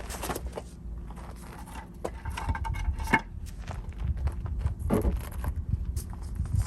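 Scattered clinks and knocks of metal parts and tools being handled during axle work, with a sharp knock about three seconds in and a few more near five seconds, over a low rumble.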